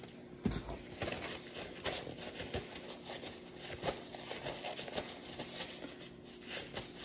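Paper napkin rustling and crinkling while hands are wiped with it: a steady, irregular run of soft crackles.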